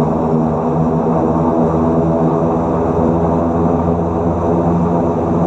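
Antonov An-26's twin Ivchenko AI-24 turboprop engines running at low taxi power, a steady drone with a low propeller hum.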